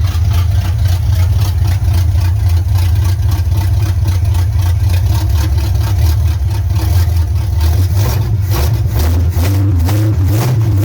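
1984 Chevy C10's 305 small-block V8 idling loud and steady through freshly installed headers, with an even, rapid exhaust pulse.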